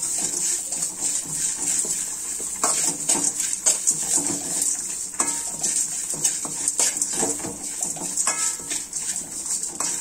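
Steel spoon scraping and stirring grated coconut and whole spices as they dry-roast in an aluminium kadai, a steady run of small scrapes and clicks against the pan.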